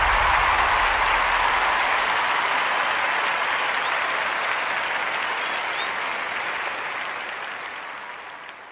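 Applause from a large crowd, dense and even, fading out slowly to silence near the end; the low bass of music dies away in the first second or so.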